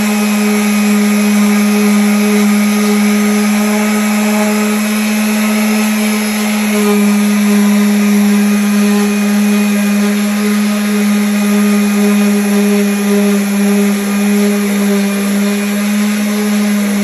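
Electric sander running steadily against wood: a constant hum with a hiss over it.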